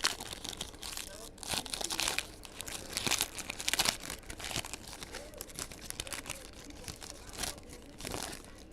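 Trading-card pack wrappers being torn open and crumpled, crinkling in a string of bursts, loudest in the first half.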